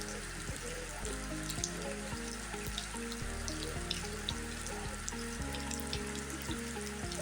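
Background music with held notes that change every fraction of a second, over a continuous crackling hiss with scattered small clicks.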